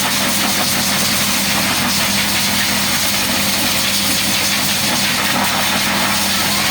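Small electric motor running steadily: a constant hum with a dense hiss over it, typical of a grooming tool such as a pet dryer or electric clippers.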